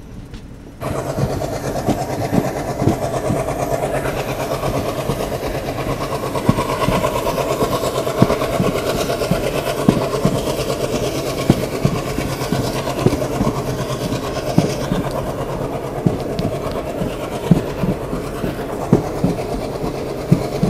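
Moving passenger train heard from an open coach doorway: a steady rumble of wheels on the rails with frequent irregular knocks as the wheels cross rail joints. The sound comes up suddenly about a second in.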